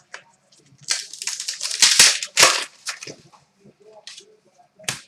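Trading card pack and cards being handled: a dense run of sharp crinkling, crackling noises between about one and three seconds in, then a few softer clicks and rustles.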